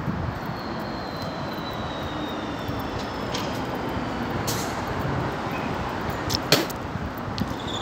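Steady road traffic noise from a nearby road, with a sharp click about six and a half seconds in.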